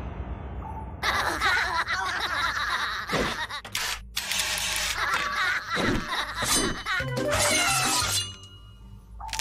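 Cartoon soundtrack: music mixed with slapstick sound effects, including a crash of something shattering.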